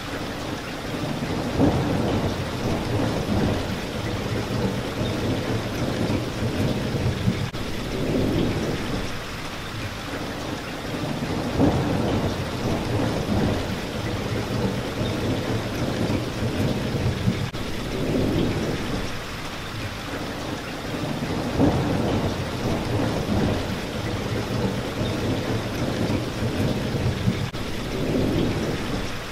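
Steady rain with low thunder rumbling through it, swelling and fading in slow waves about every ten seconds.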